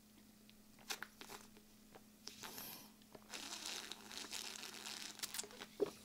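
Faint sounds of a person drinking cola from a large plastic bottle: a few small clicks, then from about two seconds in a soft hissing, crinkling noise of the bottle and the drinking.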